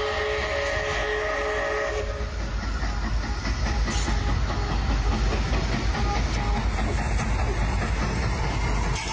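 Canadian Pacific 2816 'Empress', a 4-6-4 Hudson steam locomotive, sounding its chime whistle, a chord of several steady notes held until about two seconds in. It is followed by the heavy low rumble of the locomotive approaching on the track.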